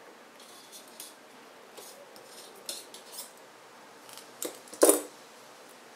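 Chain nose pliers working copper wire: a series of small metallic clicks and scrapes as the jaws grip and bend the wire, ending in a louder ringing metal clink about five seconds in.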